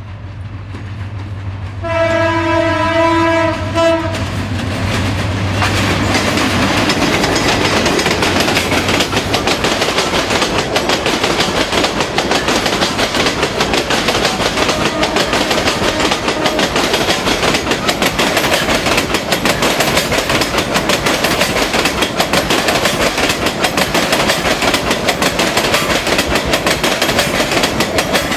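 An express train's diesel locomotive comes up with a low engine hum and sounds its horn for about two seconds. The train then runs through at speed, its coaches passing with a loud, steady clickety-clack of wheels over the rail joints.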